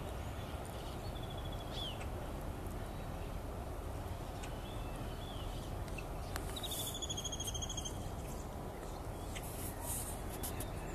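Small birds chirping over a steady low outdoor rumble, with one rapid, high trilled call about six and a half seconds in that lasts over a second.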